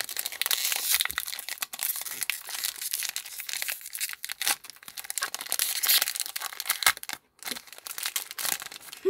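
Foil Pokémon booster-pack wrapper crinkling and tearing as it is ripped open by hand, with the pack of cards then slid out of the wrapper.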